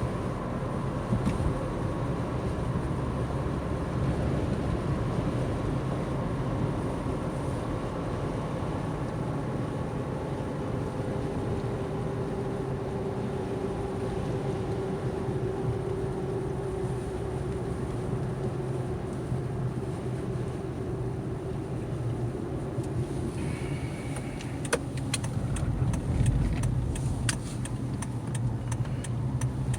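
Steady road and tyre noise with engine hum, heard inside a moving car's cabin at highway speed. About 25 seconds in, a series of sharp clicks begins and runs to the end.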